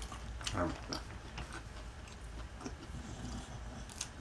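Close-up chewing and mouth sounds of someone eating a fried chicken sandwich, with scattered small wet clicks and a brief low mouth sound about half a second in.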